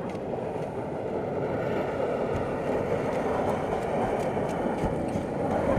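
A plastic kayak hull sliding across bare ice as it is pushed, with a steady scraping hiss.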